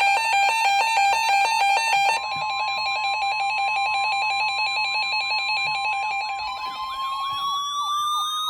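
Electronic alarm tones over a warbling siren: a rapidly switching tone pattern, then from about two seconds in a steady tone with a pulsing one, and near the end a tone rising slowly in pitch, while the siren warbles up and down about three times a second.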